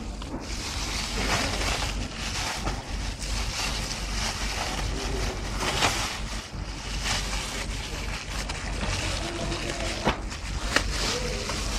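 Clear plastic bag crinkling and rustling in the hands, with irregular sharp crackles.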